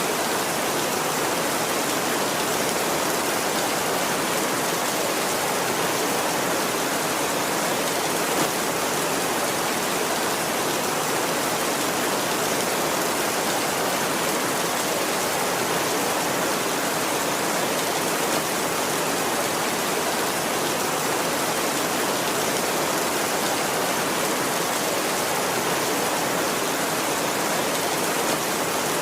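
Heavy rain drumming on a tin roof, a steady, even downpour with no thunder.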